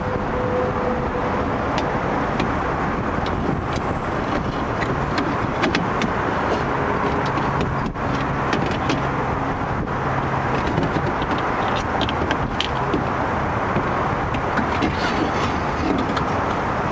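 Light clicks and metallic knocks as a new power window motor is worked into place inside a car door's steel inner panel, over a steady rumble.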